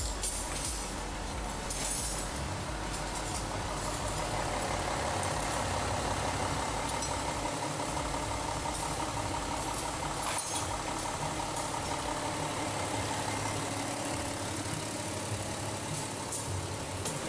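A car engine idling steadily, with a few light clicks near the start and one sharp click about ten seconds in.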